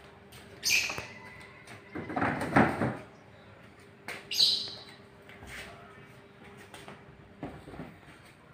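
PVC door panels and frame profiles being handled and stacked: scrapes and knocks of plastic against plastic. The loudest knocks come about two to three seconds in, with another scrape a little after four seconds and softer knocks near the end.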